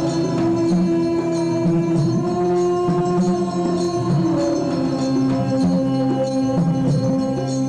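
Music with long held notes over a steady percussion beat; the held notes shift to a lower pitch about halfway through.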